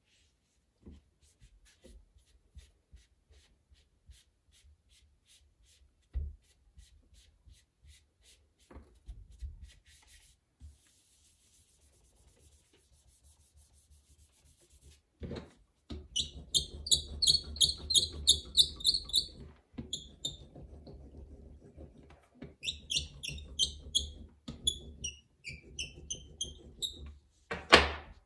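A hand tool scraping and rubbing on a clay slab in runs of short, quick strokes, each with a high rising squeak, after a stretch of faint taps. A single loud knock comes near the end.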